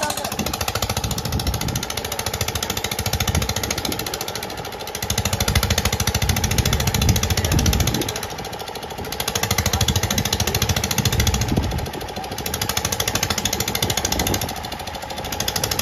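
Diesel engine driving a tubewell water pump, running steadily with a fast, even beat, while water gushes from the outlet pipe.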